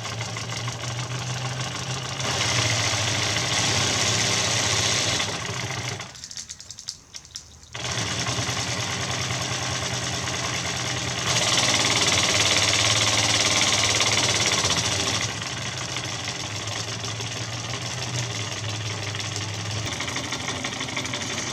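Mamod SL1 live-steam locomotive running under steam: its oscillating cylinders chuff rapidly with a hiss of exhaust steam. The hiss grows louder twice. The chuffing nearly stops for a second or two about six seconds in, then picks up again.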